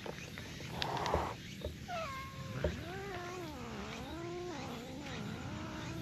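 Cat yowling. Two short falling calls come about two seconds in, then one long yowl that wavers up and down in pitch. A brief noisy burst comes about a second in.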